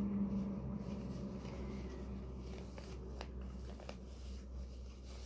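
Faint rustling of a cloth face mask being handled, with a few light clicks, over a steady low hum.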